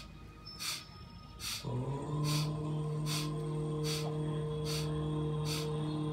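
Rhythmic, forceful pranayama breathing through the nose, one sharp breath about every 0.8 seconds. A steady drone of background music comes in about a second and a half in and holds under the breaths.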